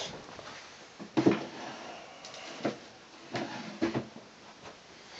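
Someone rummaging while searching for misplaced items: about four light knocks and bumps a second or so apart.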